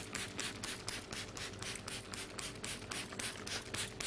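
Pastry brush swept rapidly back and forth over a sheet of puff pastry, egg-washing it: a fast, even scratchy brushing of about five strokes a second.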